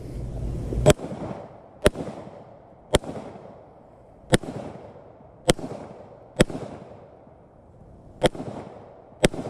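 Eight handgun shots, fired unhurriedly about a second apart, each a sharp crack with a brief echo trailing off: a Glock pistol being fired at targets to finish them off.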